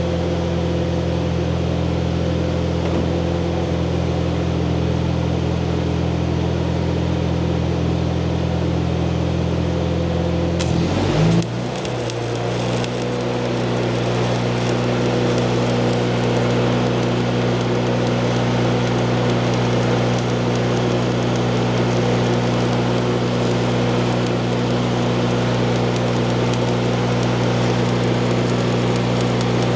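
Stick welding: a welding machine's steady hum under the crackle and sizzle of the arc. About eleven seconds in, the hum glides and settles at a different pitch, and the crackle grows louder.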